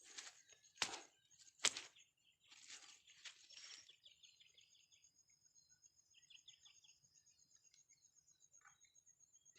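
Quiet outdoor ambience: two sharp clicks about a second apart near the start, brief rustling, then faint bird chirps over a thin steady high tone.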